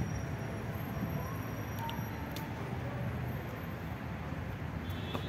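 Outdoor city ambience: a steady hum of traffic with faint, indistinct voices of passers-by and a few light clicks.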